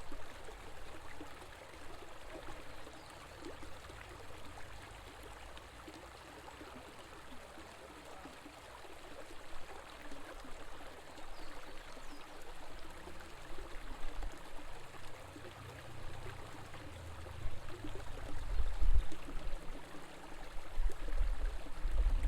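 River water flowing and trickling in a steady rush. A low, uneven rumble underneath grows stronger about two-thirds of the way through.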